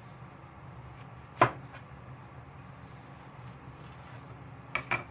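Kitchen knife striking a chopping board while cutting a bell pepper: one sharp knock about a second and a half in, then two more close together near the end, over a low steady hum.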